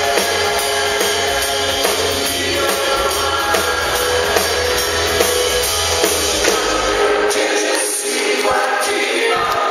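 Live country band playing through a PA: a man and a woman singing together over drums, electric guitar and bass. About seven seconds in the bass drops out, leaving mainly the voices.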